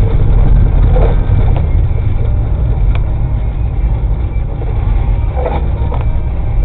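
Car driving on a snow-covered road, heard from a dashcam inside the cabin: a steady, loud low rumble of engine and tyre noise, with a few faint knocks.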